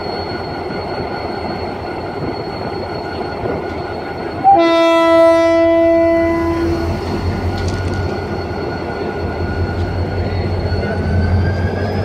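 GT22 diesel locomotive with an EMD 645 engine running, with one horn blast of about two seconds about four and a half seconds in. From about nine seconds on, the engine's low rumble builds as it takes power to pull away.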